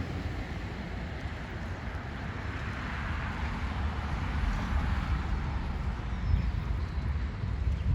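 Wind buffeting the microphone as a low, uneven rumble over a steady outdoor hiss, with no distinct event standing out.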